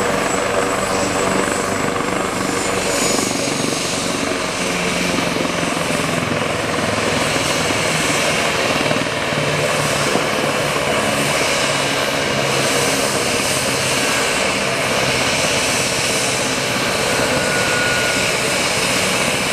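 AgustaWestland AW139 twin-turbine helicopter running on the ground with its rotors turning: a steady turbine whine over the rotor noise, holding level throughout.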